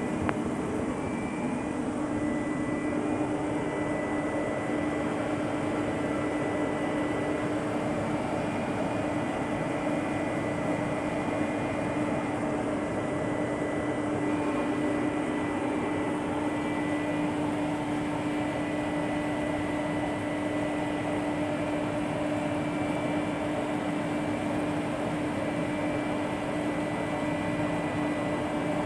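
A steady machine hum: a constant low tone with a fainter high whine over a noisy rush, unchanging in level.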